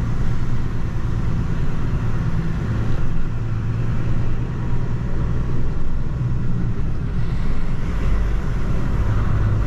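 HGV diesel engine running and road noise, heard from inside the cab while the lorry drives along: a steady low drone.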